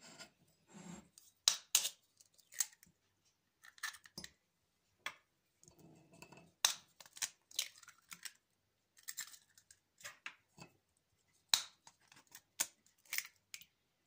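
Three raw eggs being cracked and broken open over a ceramic mug: a scattered series of sharp taps and crackles of breaking shell.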